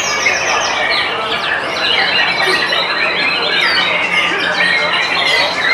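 White-rumped shama singing in quick, varied phrases within a dense, unbroken chorus of many other songbirds calling and singing at once.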